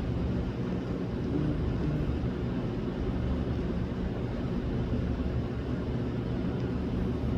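Steady low mechanical hum and rumble that does not change.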